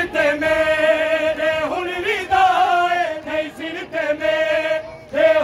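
A noha, the Shia mourning lament, chanted in a man's voice without instruments. The lines are long held notes that break briefly about two seconds in and again near the end.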